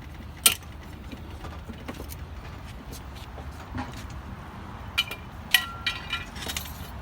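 Metal tools and car parts clinking: a sharp clack about half a second in, then a run of metallic clicks and clinks with brief ringing around five to six seconds, over a steady low rumble.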